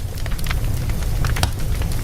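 Wood fire crackling in a fireplace: scattered sharp pops and snaps from the burning logs over a steady low rumble of the flames.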